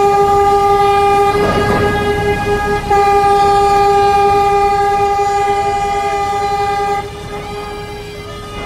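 A ship's horn sounding one long steady blast while a container ship rams another ship's container stacks, with a burst of crunching collision noise about a second and a half in. The horn drops to a fainter level about seven seconds in.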